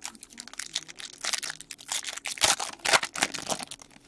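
Foil trading-card pack wrapper crinkling and tearing as a pack of hockey cards is ripped open by hand, a dense run of crackles that is busiest in the second half.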